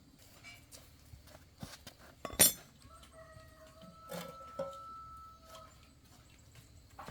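A single sharp clank about two and a half seconds in, then a rooster crowing in the background, one long held call.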